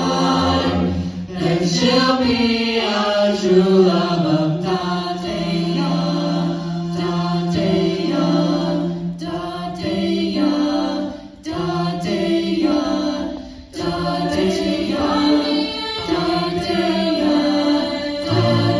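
A cappella vocal ensemble singing in close harmony into handheld microphones, amplified through stage speakers. Sustained chords move over held low bass notes.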